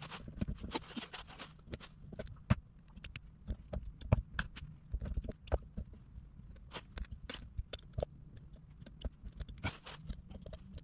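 Irregular light clicks and taps with a few sharper knocks, from hand tool work on a plastic gas tank, over a low steady hum.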